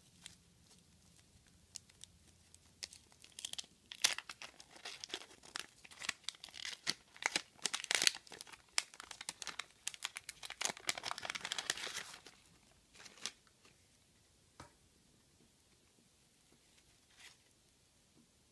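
Wax paper wrapper of a 1985 Garbage Pail Kids pack being torn open and unfolded, crinkling and crackling in a dense run from about 3 seconds in until about 12 seconds in. A few faint rustles and ticks follow as the stickers are handled.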